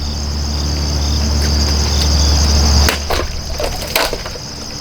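Construction machinery running with a steady low rumble that cuts off about three seconds in, over a steady high buzz of insects. A few sharp knocks follow.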